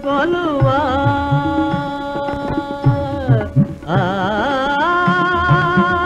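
Music: a Carnatic-style devotional song, one voice holding long, ornamented notes without words over hand-drum strokes. The voice breaks off about three and a half seconds in and takes up a new held note.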